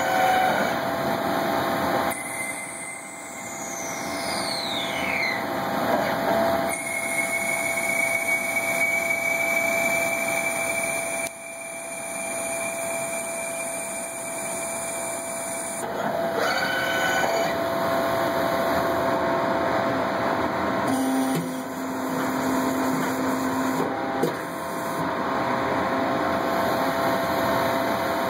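Small CNC lathe machining Delrin filament drive reels: a steady motor and spindle whine with cutting noise, in short clips that change abruptly every few seconds. A few seconds in, a high whine falls steadily in pitch.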